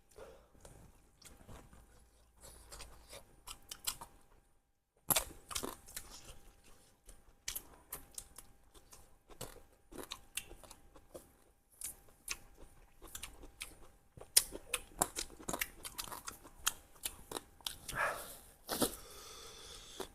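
Close-miked chewing and crunching of spicy duck curry: irregular wet mouth clicks, bites and crunches, with a brief dead gap just before five seconds in.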